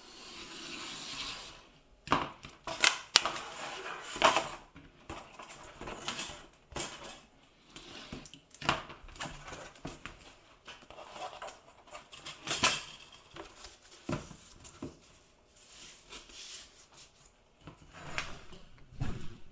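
Irregular clicks, taps and scrapes of hands handling a picture frame, its glass and backing pieces during assembly, with a short rustling scrape in the first two seconds.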